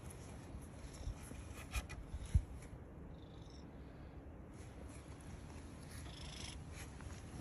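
Domestic cat purring steadily, close to the microphone, with a few soft low thumps between one and two and a half seconds in.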